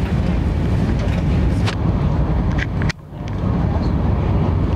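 Running noise of an Indian Railways Shatabdi Express coach at speed, a low rumble with a few clanks, while a rake of BCNHL covered goods wagons passes on the next track. The noise drops off abruptly about three seconds in as the goods train clears, then the coach's own running noise comes back.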